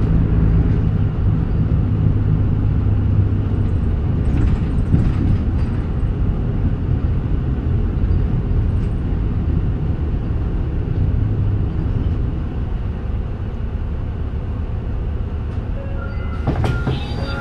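Interior running sound of a Mitsubishi Fuso Aero Midi KK-MK27HM diesel bus under way: a steady low engine drone with road and body noise, easing off in the second half. Brief high ringing tones sound near the end.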